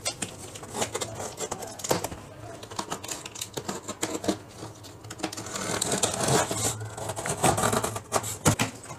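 Box cutter slicing packing tape and cardboard on a large carton, with scratching, clicks and knocks as the box is handled; the scraping is densest a few seconds before the end.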